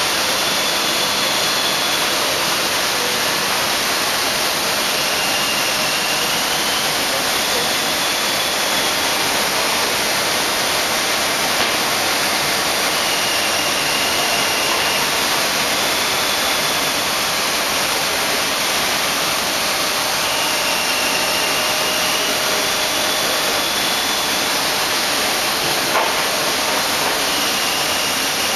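Woodworking machinery running with a steady, loud rushing noise. Faint high whines come and go every few seconds, and a single click sounds near the end.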